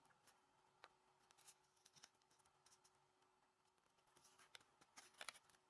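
Near silence, with a few faint rustles and clicks of a paper square being folded and creased by hand, a little louder near the end.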